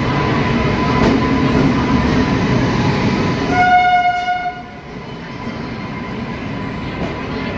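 Train rumbling along the tracks, then a single train horn blast about three and a half seconds in, lasting about a second. After the horn the rumble falls away to a quieter steady background.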